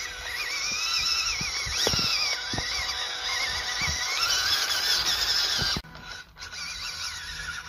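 Small 180-size electric motor and gearbox of a Fayee FY002 RC crawler whining, its pitch rising and falling as the throttle is worked, with a few knocks. The whine drops off suddenly about six seconds in and goes on fainter.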